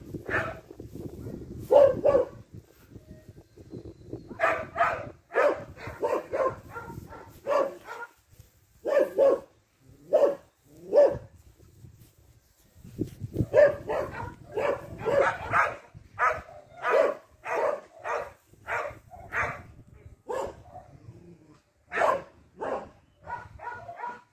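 Dog barking in runs of short barks, about one or two a second, with brief pauses between the runs.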